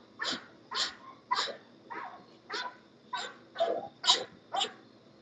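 A dog barking in a steady series of short, sharp barks, about two a second.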